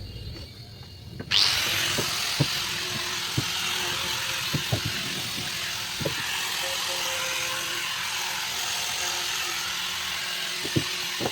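A handheld power tool starts about a second in and runs steadily with a hissing whir, while faint knocks sound here and there.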